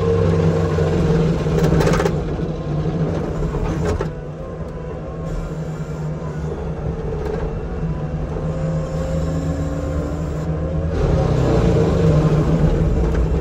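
Forestry mulcher running under load, the engine and spinning mulching head making a steady drone while the teeth grind up cedar logs. The grinding is louder for the first two seconds or so and again near the end.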